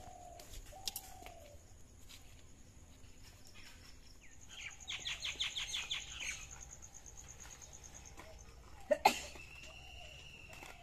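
Outdoor birds calling: a fast run of chirps, about eight a second, in the middle, and a few short low calls early on. A sharp knock about nine seconds in is the loudest sound, followed by a steady whistled note.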